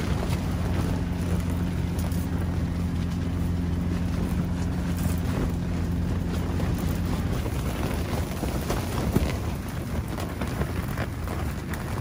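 Strong wind buffeting a tent, heard from inside: the fabric walls flap and rustle without a break. A low steady hum runs under it for the first seven seconds or so, and there is a sharp knock about nine seconds in.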